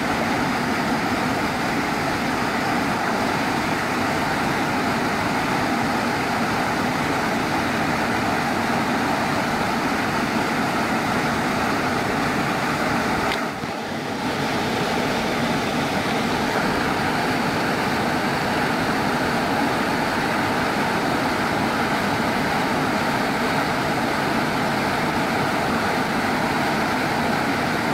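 Small waterfall pouring into a rock plunge pool: a steady rushing of falling water, with a brief dip about halfway through.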